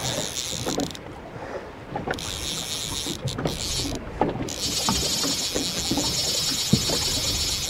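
Fly reel's drag buzzing as a hooked fish pulls line off the spool, in spurts that stop about a second in and again briefly around four seconds, then run steadily. Wind on the microphone and water against the boat underneath.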